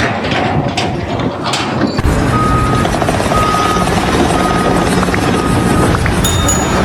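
A vehicle's reversing alarm beeping about once a second over a running engine, starting abruptly about two seconds in after some noisy knocking.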